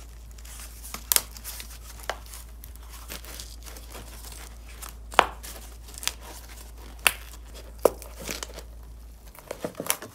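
Corrugated cardboard, covered in self-adhesive film and notched along its length, crackling and creaking as it is pressed flat and bent by hand into a ring, with about five sharp cracks as the notched folds give. A low steady hum underneath stops near the end.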